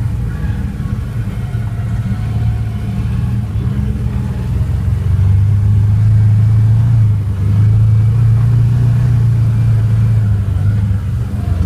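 Chevrolet Corvette engine running while the car is driven, a steady low drone that grows louder about five seconds in and stays up, with a brief dip near seven seconds.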